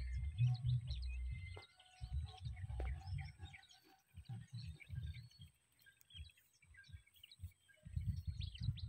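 Small birds chirping in many short, scattered calls, over an uneven low rumble that comes and goes and is loudest at the start and again near the end.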